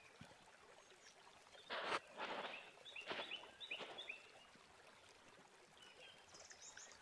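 Faint rustling of a bundle of thin copper telephone-cable wires being handled for a couple of seconds in the middle, with a few short high chirps from a small bird.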